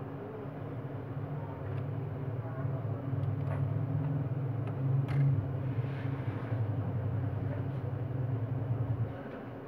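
A steady low mechanical rumble that eases off near the end, with a few faint clicks and taps from small phone parts being handled.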